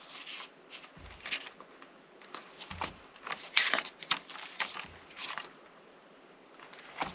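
Pages of a paper booklet being turned and handled: scattered light rustles and crackles of paper, with a couple of soft thumps.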